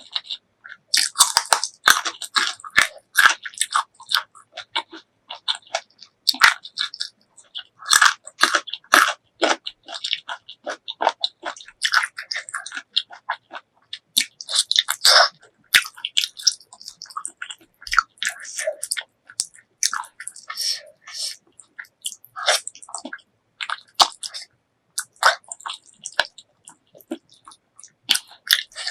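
Close-miked chewing and biting of spicy pork leg curry with rice: a steady run of irregular wet mouth clicks and smacks, with a few crunchier bites.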